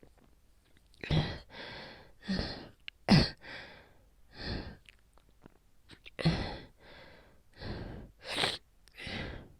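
A woman with a cold coughing hard in two fits of about five or six coughs each. These are painful chest coughs from a cold that has left her bronchial tubes sore.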